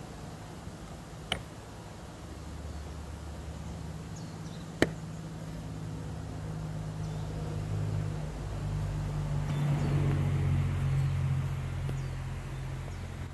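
Two sharp rifle shots from a Remington 783 bolt-action in .300 Win Mag, about three and a half seconds apart, the second louder. A steady low rumble runs underneath and swells near the end.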